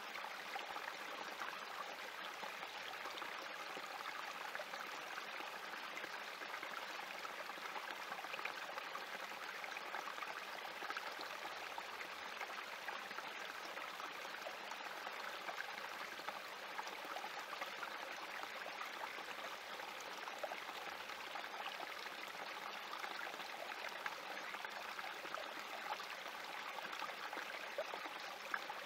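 Small spring creek trickling and splashing over rocks in a steady flow.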